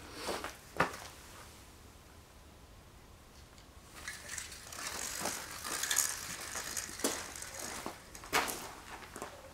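Footsteps crunching on a gravel and sawdust floor. From about four seconds in comes a few-second stretch of scratchy noise as a pen is drawn along a rough timber beam to mark a cut line, with a couple of sharp clicks near the end.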